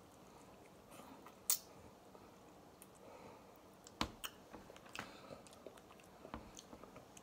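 Cooked snow crab leg shells cracking and snapping as they are broken open by hand, with faint chewing. There is one sharp crack about a second and a half in, then several more in the second half.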